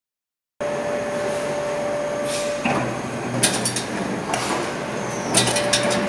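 Closed-type steel buckle-forming machine running, its press tooling striking with sharp metallic clacks roughly once a second over a steady mechanical hum and a faint steady whine.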